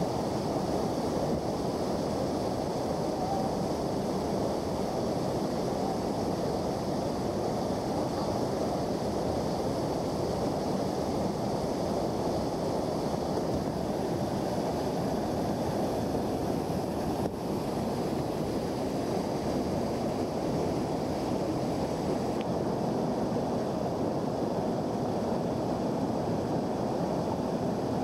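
Whitewater creek rushing over steep rapids and a waterfall: a steady, unbroken rush of water.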